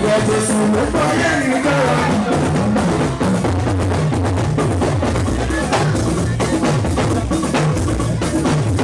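Church music with drums and percussion playing throughout, over wavering pitched instrument or voice lines.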